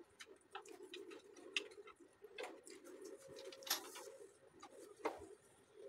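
Close-up eating sounds: roti being torn and food being chewed, with wet mouth clicks and smacks at irregular moments. A low, wavering background sound runs underneath throughout.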